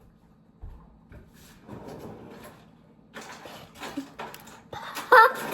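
Kitchen handling noises while picking eggshell out of a mixing bowl and getting pancake mix ready: a soft knock about half a second in, then bursts of rustling and scraping that grow busier after about three seconds, with a brief voice near the end.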